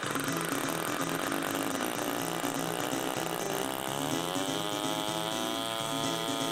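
Graupner/O.S. NSU Wankel rotary model glow engine running on a test stand with a 9x6 propeller. About three and a half seconds in, its pitch climbs smoothly, then holds at a high, steady note.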